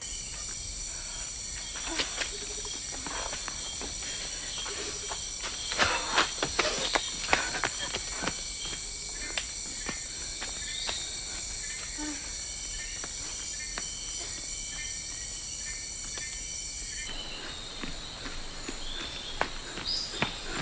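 Steady, high-pitched insect chorus of a tropical forest, several tones layered together, with a cluster of short snaps and clicks about six to eight seconds in. The chorus changes near the end.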